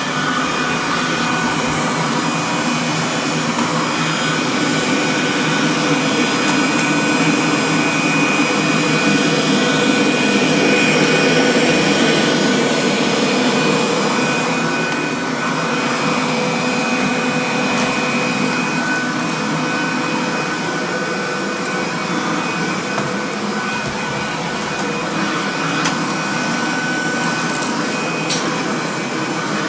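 Kirby Classic upright vacuum cleaner running steadily with a high whine over its rushing noise. It swells a little louder about a third of the way in, then settles back.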